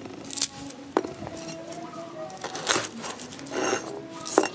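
A garlic bulb being broken apart by hand on a wooden chopping board: papery crackling rustles, with a couple of sharp knocks of cloves against the wood, one about a second in and one near the end.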